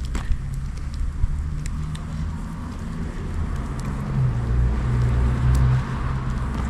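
A motor vehicle's engine running with a steady low hum that grows louder about two-thirds of the way through, then eases. Scattered sharp clicks are heard over it.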